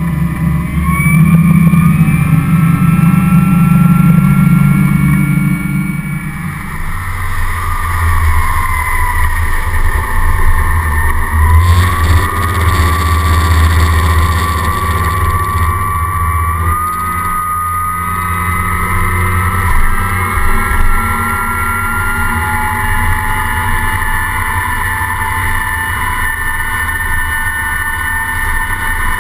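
Yanmar 370 hp V8 diesel pushing an XO 270 RS along at speed: a deep, steady engine note with a high whine over it and water rushing past the hull. The whine rises a little about twelve seconds in.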